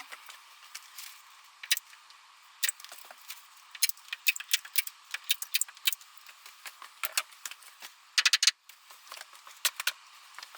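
Irregular sharp clicks and ticks over a thin hiss, some coming in quick clusters.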